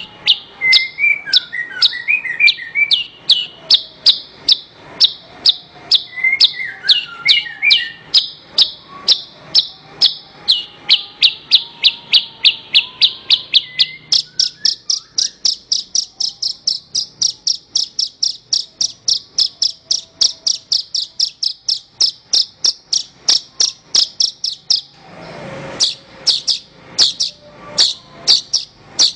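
Javan bush lark (branjangan) singing a long run of short, sharp, high notes, about three a second. The notes step up in pitch about halfway through. Fainter twittering sits underneath in the first several seconds, and a brief hiss breaks in near the end.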